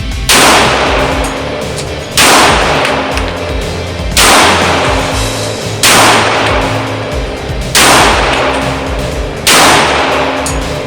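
Six slow, evenly paced pistol shots from a .45 ACP Rock Island Armory Rock Ultra FS 1911, about two seconds apart, each with a long ringing decay. Background music plays underneath.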